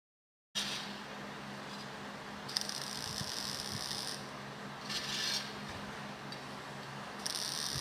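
Electric welding arc crackling and hissing over a steady low hum. It starts abruptly about half a second in, with louder hissing spells near the middle and again near the end.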